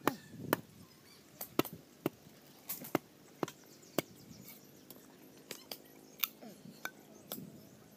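Machete blade chopping and knocking into a length of bamboo: a dozen or so sharp knocks at uneven intervals.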